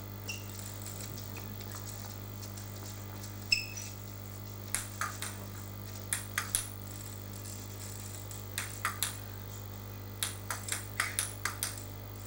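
Table tennis ball being bounced before a serve: short runs of sharp clicks, about three at a time, then a quicker run of six or so near the end, over a steady low hum.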